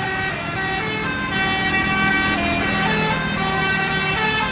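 Bus 'telolet' multi-tone air horn playing a melody: several horn notes sound together and step up and down in pitch from note to note, continuing without a break, over the low rumble of the bus.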